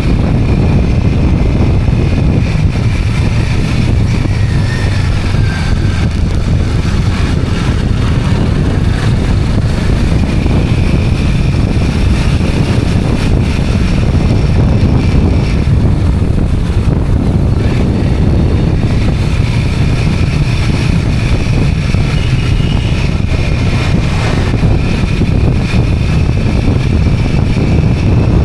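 A motorized two-wheeler under way, its engine running steadily beneath a heavy, constant low rumble of wind on the microphone.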